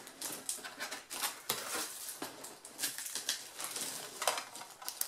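Polystyrene packing peanuts shifting and rubbing together in a cardboard box as hands dig through them: a run of irregular scratchy rustles.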